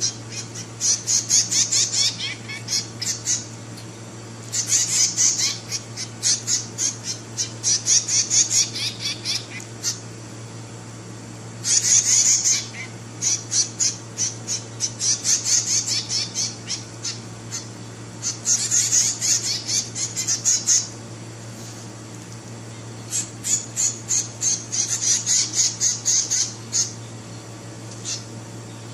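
Nestlings giving rapid, high-pitched begging chirps in bouts of a few seconds, with short pauses between, over a steady low hum.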